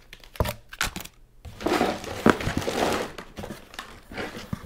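Plastic tackle packaging crinkling and rustling as it is handled. A few sharp clicks come in the first second, then a longer burst of crinkling.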